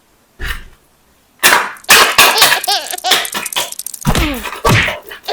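Near silence, broken by a short sound about half a second in, then from about a second and a half in a run of high-pitched laughter, a quick string of rising-and-falling ha-ha bursts.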